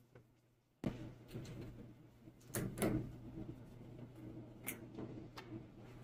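Handling noise from refitting a rubber drain hose and its wire spring clip onto a washing machine's drain pump outlet: a scatter of faint clicks and rubbing, loudest about halfway, over a low steady hum.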